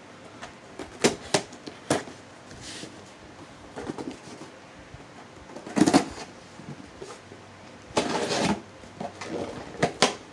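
A cardboard shipping box being opened and handled by hand: scattered sharp clicks and knocks, a louder short burst of rustling about six seconds in, and a longer rustle of about half a second around eight seconds in.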